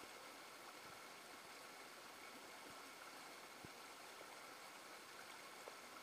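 Faint, steady rush of a shallow rocky stream running over and between boulders, with a few small splashes, one a little plainer about three and a half seconds in.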